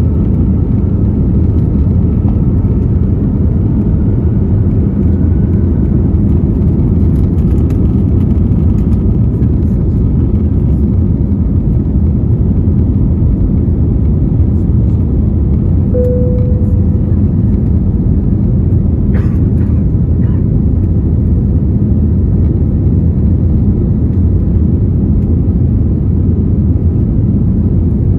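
Steady cabin roar of an Airbus A321neo's two Pratt & Whitney PW1133G geared turbofans at takeoff thrust, with rushing airflow, heard from a seat behind the wing as the aircraft lifts off and climbs. A brief tone sounds about halfway through, followed by a few faint clicks.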